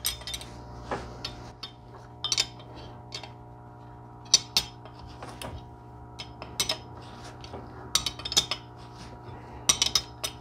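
A 5/8 open-end wrench tightening a nut down on a lock washer, with irregular light metallic clicks and clinks as the wrench is worked and repositioned on the nut.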